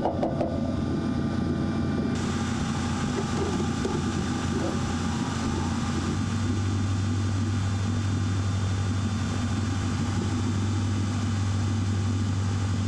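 A steady motor drone with a low hum, the hum growing stronger about six seconds in.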